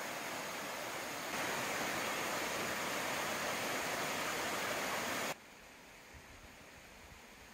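Mountain waterfall and rocky cascade rushing, a steady sound of falling water. It gets louder about a second in and cuts off abruptly about five seconds in, leaving a much quieter background.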